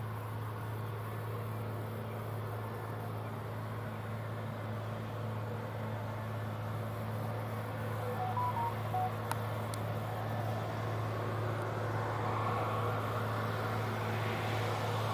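John Deere tractor's diesel engine running steadily under load as it pulls a field cultivator through plowed ground, a low, even drone that grows louder near the end as the tractor comes closer.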